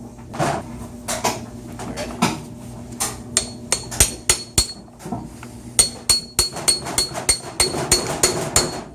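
Hammer tapping a washing-machine motor coupler half back onto its shaft: a series of sharp metal taps with a faint ringing note, a few spread out at first, then a quicker run of about three to four taps a second in the second half.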